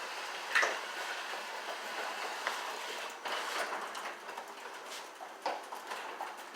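Access garage door opener running and driving the garage door along its track: a steady mechanical run with a few knocks and clanks from the door.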